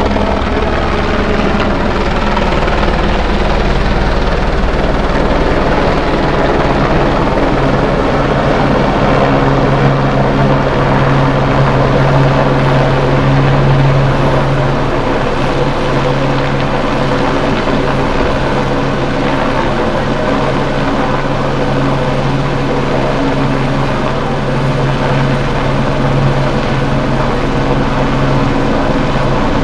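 Firefighting helicopter running steadily in low flight and hover, its rotor and engine making a loud continuous drone with a steady low hum.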